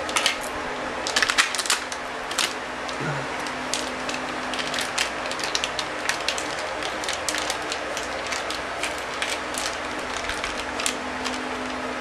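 Plastic packaging of a RAM module crackling and clicking as it is handled and the memory stick is taken out: an irregular run of small sharp clicks over a faint steady hum.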